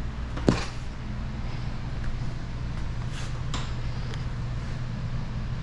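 A sheet of clear paint protection film being handled and laid over a car's side mirror: a quick falling swish about half a second in, then a few faint crinkles, over a steady low hum.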